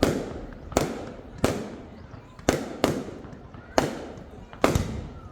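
Fireworks going off in a rapid, irregular series of about nine sharp bangs, each trailing off in a fading rumble.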